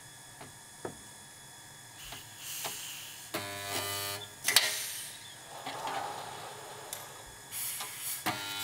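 Suspended resistance spot-welding gun with copper electrode arms working on galvanized steel frame profile: a hiss as the tongs close, about a second of steady electrical buzz during the weld, and a sharp burst as it releases, then the next cycle's hiss and buzz begin near the end.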